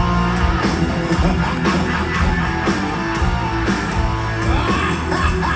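Live heavy metal band playing an instrumental passage between vocal lines, electric guitar to the fore over bass and drums, with a few bent guitar notes in the second half.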